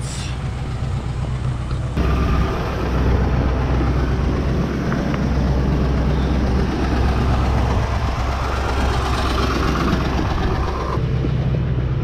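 Ford F-350 pickup idling with a steady low hum while it warms up. A louder rushing noise lies over it from about two seconds in until near the end.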